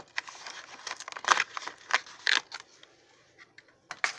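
Cardboard and plastic toy packaging being handled and pulled open: irregular rustling and crinkling, with three louder crackles between about one and two and a half seconds in, then quieter.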